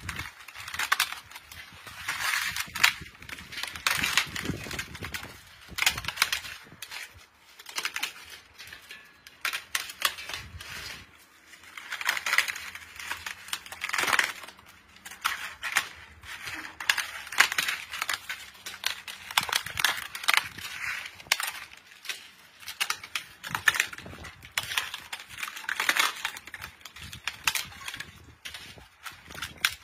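Crisp sun-dried papad sheets crackling and crinkling as they are peeled off a plastic sheet and torn into pieces by hand: a dense, irregular run of sharp cracks.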